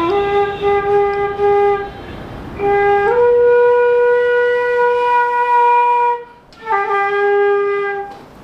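A wind instrument playing a slow tune of long held notes: one note held for about two seconds, then a step up to a higher note held for about three seconds, then back down to the first note near the end.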